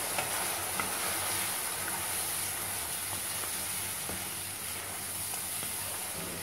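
Besan and yogurt batter sizzling steadily in a hot pan of oil and fried onions, stirred with a wooden spatula that now and then gives a faint scrape or tap on the pan.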